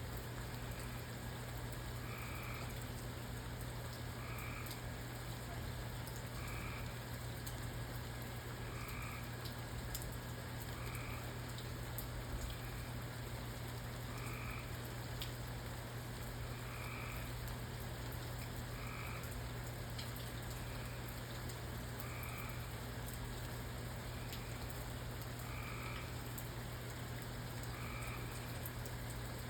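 Frogs calling at night, short calls repeating about every two seconds, over a steady rain-like hiss, a low constant hum and a few faint drip-like ticks.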